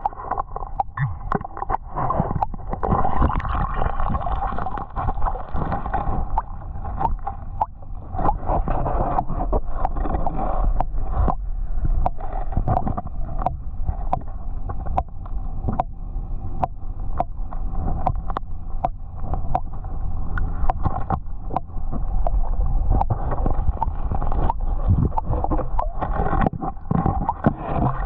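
Creek water heard with the microphone underwater: a muffled, gurgling wash, dotted all through with many small sharp clicks and knocks of gravel and stones being shifted as the creek bed is dug.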